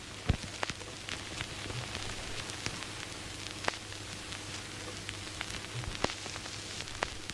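Vinyl record surface noise as the stylus tracks the groove: a steady hiss with scattered crackles and sharp pops over a low steady hum.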